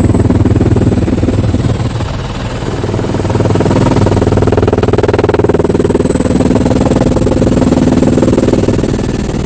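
Helicopter engine and rotor running steadily, heard from inside the cabin, with a rapid pulsing beat of the blades.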